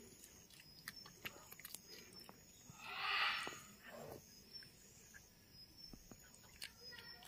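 Red panda biting and chewing a peeled banana: faint wet smacking clicks, with a brief breathy hiss about three seconds in.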